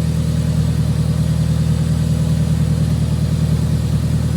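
Toyota Celica's four-cylinder engine idling steadily with an even, fast pulse, running on freshly fitted spark plugs and spark plug wires that replaced old burnt ones.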